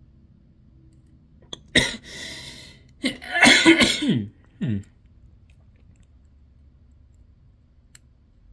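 A man coughing hard three times: a sharp burst about two seconds in, a longer, louder fit about a second later, and a short last cough.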